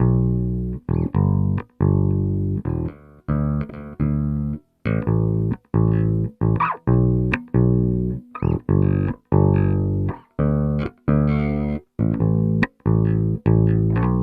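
Cort GB64JJ electric bass guitar played clean, with no effects, EQ or compression: a run of short plucked notes, each cut off sharply, with the last one left ringing.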